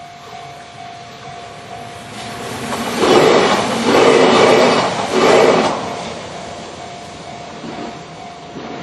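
Two-car Kintetsu Series 21 electric train passing over a level crossing. It swells to a loud rush with heavy wheel clatter in three surges about three to five seconds in, then fades. The crossing's warning bell keeps sounding a steady tone throughout.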